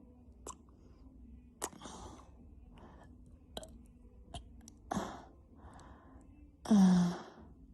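A woman burps once, loud and short, near the end. Before it come quiet mouth clicks and soft breaths.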